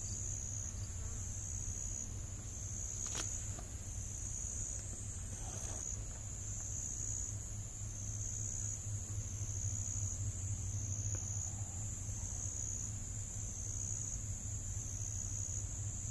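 Insects trilling steadily in a high chorus that swells and fades about once a second, over a low steady hum.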